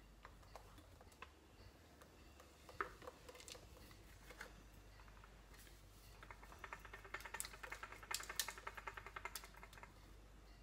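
Faint scattered clicks and knocks of a plastic mixer-grinder jar being handled. In the second half they turn into a quick run of small rapid taps and rattles as the jar is tipped and worked over a plastic tub to empty out the thick ice cream mixture.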